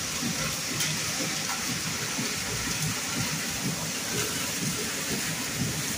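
Steady rushing noise over a fluttering low rumble, from industrial machinery running.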